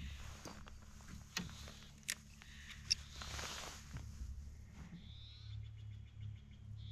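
Fishing reel being cranked, a few sharp clicks followed near the end by a fast, even squeaking tick; the reel is squeaky and needs oil.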